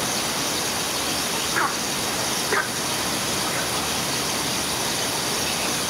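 Steady rush of flowing water, as from a stream or cascade, with two brief chirps over it.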